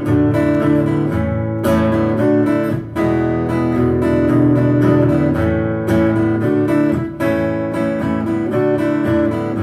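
Acoustic guitar strumming chords, an instrumental passage of a song with no singing.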